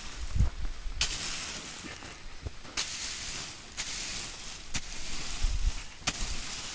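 Garden rake dragging through a pile of hot, water-doused biochar: a hissing, crackling sizzle that swells with each pull, with a few sharp clicks of charcoal chunks knocking together.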